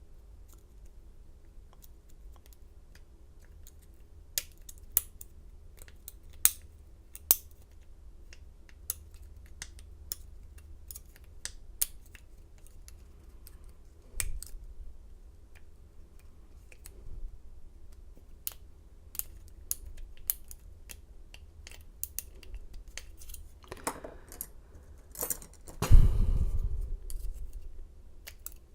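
Lockpick and tension wrench working in a Schlage pin-tumbler lock: scattered sharp metallic clicks and ticks as pins are probed, with the core held in a false set while the picker feels for counter-rotation from a security pin. A louder knock with some rustling comes near the end.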